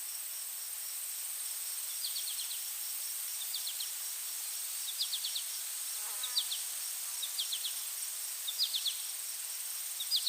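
Outdoor insect ambience: a continuous high-pitched insect trill with a steady, evenly pulsing chirp beneath it. From about two seconds in, short clusters of three to five quick high chirps repeat roughly every second and a half.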